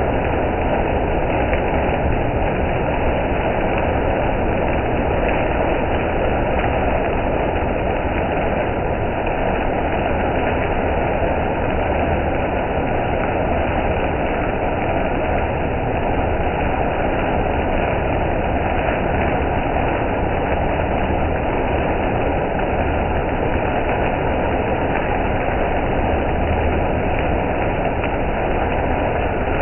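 Automatic conveyor car wash running steadily: large rotating bristle brushes scrub a soaped car while water sprays over it, over a low steady hum from the machine's motors.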